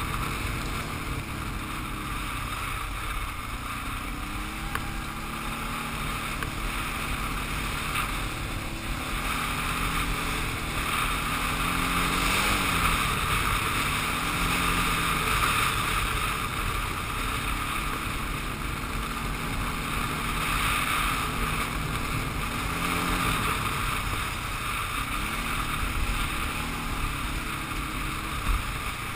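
Quad bike (ATV) engine running under way on a gravel track, its revs rising and falling over and over with the throttle, with wind buffeting the microphone.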